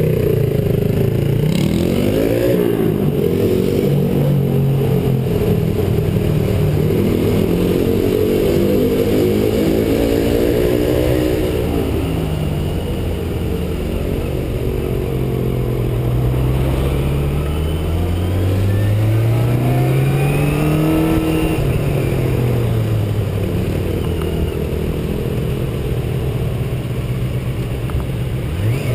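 Motorcycle engine revving up through the gears and easing off in traffic, its pitch climbing several times and dropping back, over steady wind rush.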